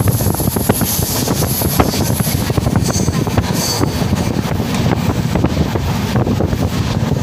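Passenger train running at speed, heard from inside a carriage at the window: a steady rumble of the wheels on the rails with frequent light clicks, and wind rushing over the microphone.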